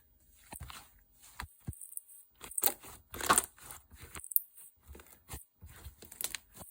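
Homemade slime being pressed and pulled by hand, giving a run of irregular sticky crackles, clicks and pops.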